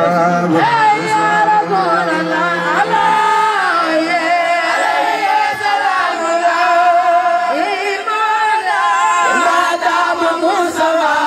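A man singing a khassida, a Senegalese Sufi devotional poem, into a microphone, with long held notes that waver and bend in ornamented turns.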